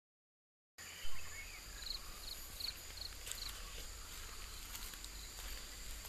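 Outdoor countryside ambience that cuts in abruptly after a moment of silence, with a brief louder sound at the start. A steady high insect drone runs under a bird giving four short chirps in quick succession, over a low steady rumble.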